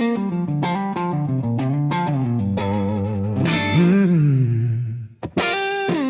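Blues guitar intro: single plucked notes and short runs with string bends, over a bass line, with a short break about five seconds in.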